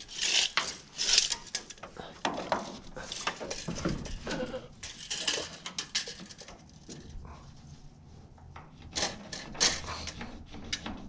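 Irregular clinks, taps and short scrapes of metal being handled: tools and steel knocking and rubbing together in a series of short bursts.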